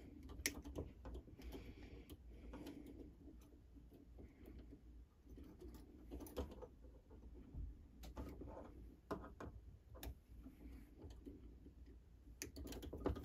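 Faint, irregular small clicks and taps of metal parts from a Seth Thomas clock movement being handled and set down during disassembly.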